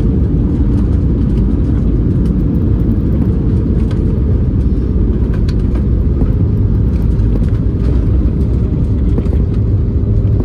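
Airliner cabin noise during the landing rollout, heard from a window seat over the wing: a loud, steady low rumble of engines and wheels on the runway as the plane slows down.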